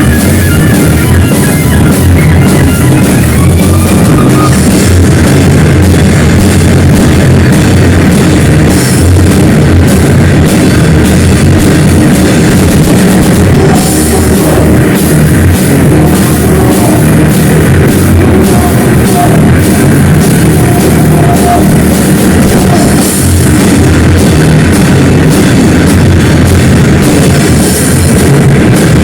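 Loud rock or metal music with a drum kit and distorted guitar, with a short run of high guitar notes in the first few seconds.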